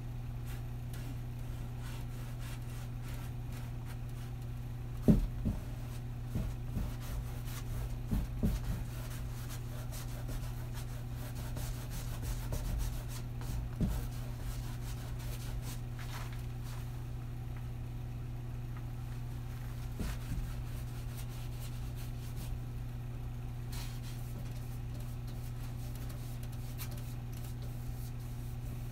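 Paintbrush working paint onto a stretched canvas: soft rubbing strokes and a series of low thumps against the canvas, bunched from about five to fourteen seconds in, the first thump the loudest. A steady low electrical hum runs underneath.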